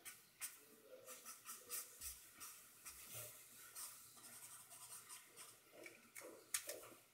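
Pen nib scratching on paper in quick short strokes and dabs as an ink drawing is made, faint, with one sharper tap near the end.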